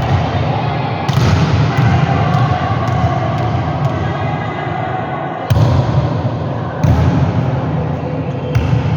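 Volleyball being struck and bouncing off the court floor, several sharp hits over a steady echoing hall background.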